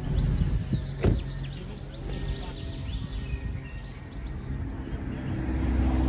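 A Toyota sedan's rear door being shut, a single thump about a second in. A low steady hum comes in near the end.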